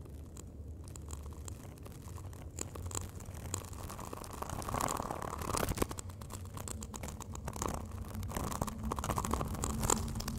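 Extract of an electroacoustic composition played over loudspeakers: a dense texture of crackles, scratches and clicks over a low rumble, made by repeatedly processing field recordings of reeds and wind in Csound so that they suggest invertebrate activity.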